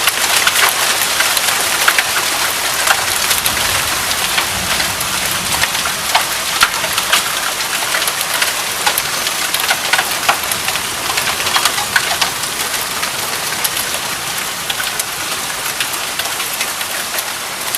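Heavy thunderstorm rain pouring steadily: a dense hiss scattered with many sharp taps of drops striking hard surfaces.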